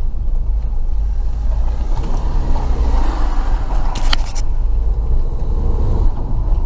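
Car engine and road noise heard from inside the cabin while driving, a steady low rumble, with the engine note rising between about two and three seconds in. A few sharp clicks come about four seconds in.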